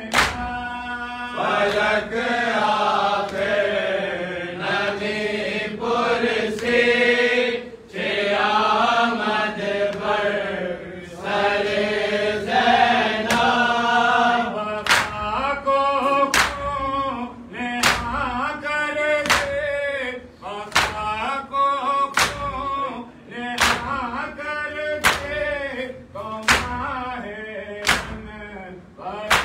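Men chanting a Farsi noha, a Shia lament, together, with sharp slaps of bare-handed chest-beating (do-dasti matam, both hands) striking in time. The slaps are scattered at first, then settle into a steady beat about one every 0.7 seconds from about halfway through.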